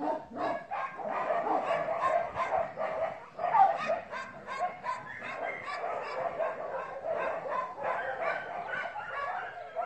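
Dog barking and yipping over and over, short barks coming in quick succession, with the loudest bark about three and a half seconds in.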